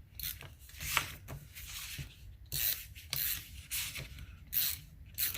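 Tape runner being drawn across paper: a series of short scratchy strokes, about one a second.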